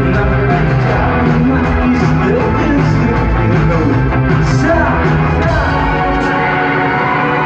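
Live rock band playing loudly in a concert hall, heard through a phone's microphone: drums with cymbal hits, bass and guitars, with a sung vocal line over them.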